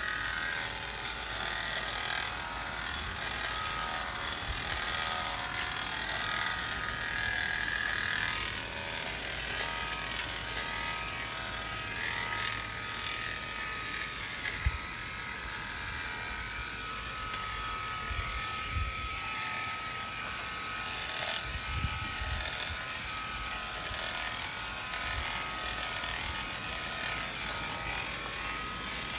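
Premier One electric sheep-shearing clippers running steadily, with a constant pitched hum, as they cut through a ram's wool. A few short low thumps come through partway through.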